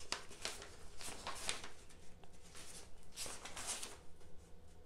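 Sheets of a newsprint pad rustling as they are leafed back one at a time to be counted: a series of short, soft paper swishes with a lull around the middle.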